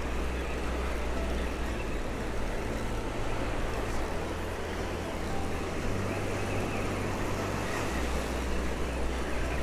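Wind rumbling on the microphone over the steady wash of surf, the low rumble swelling and easing every couple of seconds.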